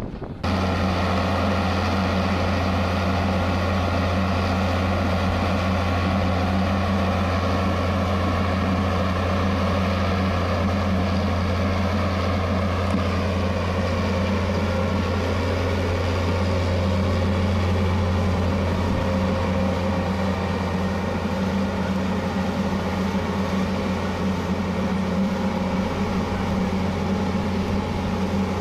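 Amphibious excavator's diesel engine running steadily, a constant low hum that comes in abruptly just after the start and holds unchanged.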